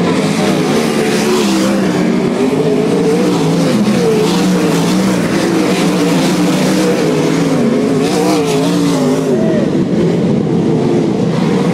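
A field of sprintcars' V8 engines racing on a dirt track, several engines overlapping and rising and falling in pitch as the cars power through the turns. Cars pass close about midway, with a burst of brighter engine and tyre noise.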